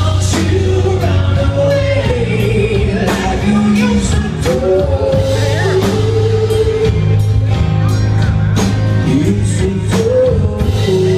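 Live rock band playing: a male lead singer holds long sung notes over electric bass, guitars and drums.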